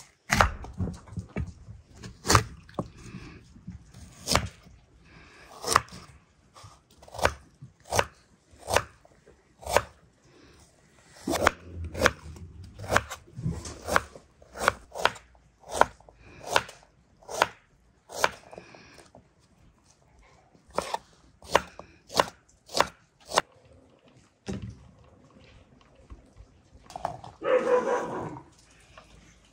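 Kitchen knife chopping fruit on a wooden cutting board, a sharp knock with each cut, irregular, one to two a second with short pauses. Near the end, the chopped pieces are scraped off the board and clatter into a glass bowl.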